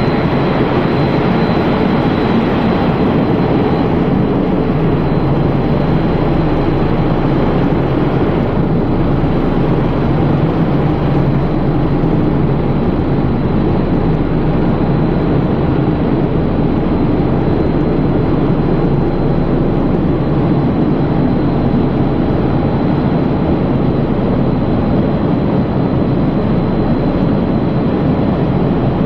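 Breakfast-cereal flake processing line running: a loud, steady mechanical din of the machinery, with a faint, steady high whine over it.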